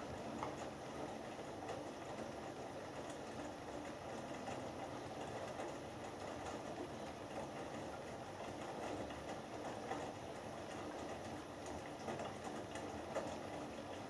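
Hoover Dynamic Next washing machine's drum turning during the main wash: wet laundry tumbling and water sloshing inside the drum, with a few small knocks.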